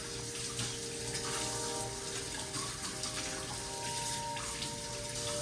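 Water running steadily from a kitchen tap into a sink, with soft background music of held notes underneath.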